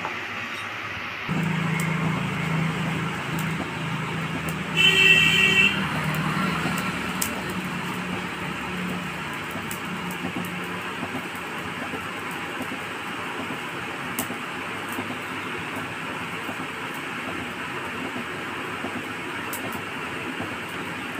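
Steady rushing noise of a blacksmith's coal forge being blown, with a low hum over roughly the first half. A short honk-like tone sounds once, about five seconds in.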